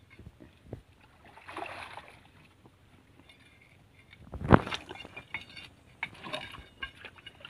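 A metal bar being jabbed into gravel and rock under shallow muddy water: scattered knocks and scrapes of metal on stone with some water sloshing. The loudest is a single sharp knock about four and a half seconds in.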